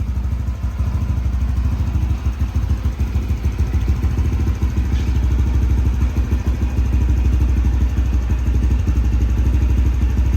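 Honda CT125 Hunter Cub's single-cylinder engine idling through a Yoshimura GP-Magnum Cyclone aftermarket exhaust, a steady, even low exhaust beat.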